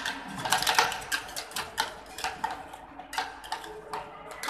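Metal spatulas chopping and scraping on the steel pan of a cold stone ice cream machine: quick, irregular metallic taps, about four or five a second.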